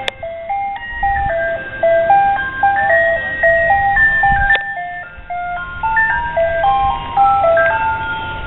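Ice cream truck's chime playing a melody of short, clear single notes stepping up and down, over a low rumble. A sharp click comes right at the start and another about four and a half seconds in.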